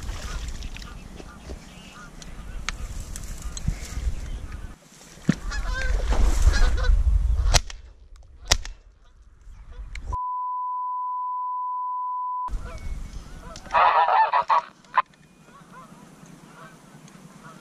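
Geese honking over wind and handling noise, then two shots from a Browning A5 semi-automatic shotgun about a second apart. A steady one-pitch beep follows for about two seconds, and then a short loud burst of sound.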